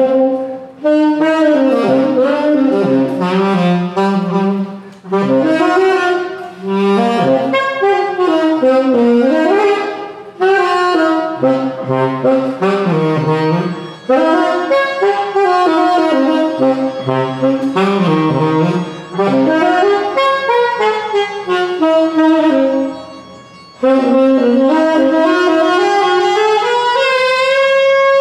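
Solo tenor saxophone playing an unaccompanied jazz line in phrases of a few seconds, with short breaks for breath between them. Near the end it rises in a long upward sweep.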